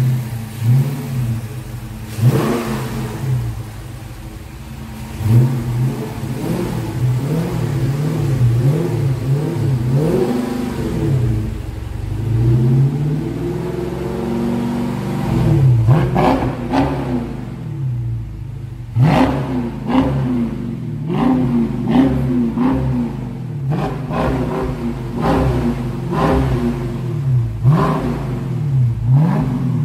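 Dodge Charger V8 exhaust being revved repeatedly with throttle blips, the engine pitch rising and falling again and again. There is one longer, smoother rev in the middle, and the blips turn sharper and quicker in the second half.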